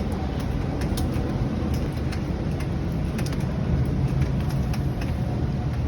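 Strong tropical-cyclone wind and heavy rain: a steady low rumble of wind with scattered sharp taps throughout.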